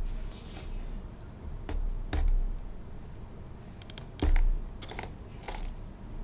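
Large kitchen knife knocking and pressing into the hard rind of a whole spaghetti squash on a thin plastic cutting mat: scattered clicks and dull thumps, the heaviest about four seconds in, the blade making little headway in the tough rind.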